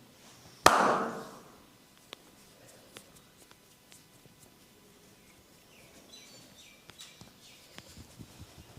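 A single loud, sharp smack a little under a second in, dying away quickly, then a few faint clicks.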